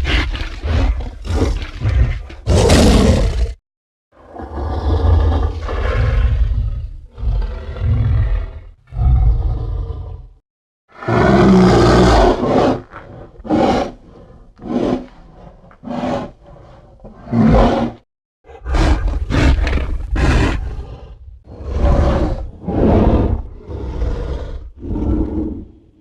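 Giant-ape (Gigantopithecus) sound effects: a long series of roars and grunts, some short and some drawn out, one after another with brief pauses between, each with a deep rumble underneath.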